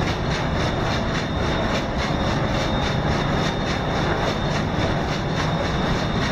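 Large Doxford opposed-piston marine diesel engine running steadily in an engine room, a dense machinery noise with a regular, even pulsing beat.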